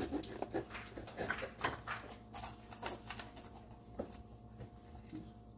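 A knife cutting through a crisp bell pepper on a plastic cutting board: a quick run of crunches and snaps that thins out after about three seconds.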